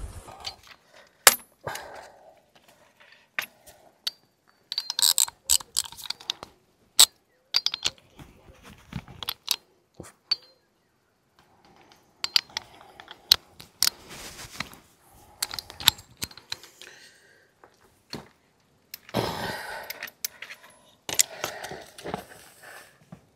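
Metal tools and parts clinking and tapping: a string of separate sharp clicks and clatters with short silent gaps, and a longer scraping rattle about two-thirds of the way through.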